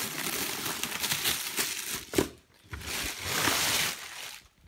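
Thin plastic bag crinkling and rustling as it is pulled off a football helmet, with one sharp crack about two seconds in, the loudest moment.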